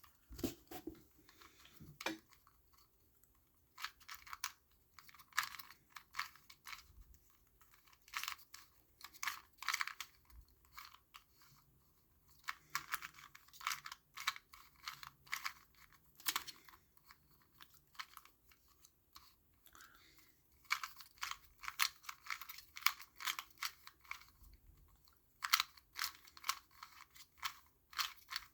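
Plastic 2x2 Rubik's cube being turned by hand: quick runs of clicking and rattling as the layers are twisted, in bursts of a second or two broken by short pauses.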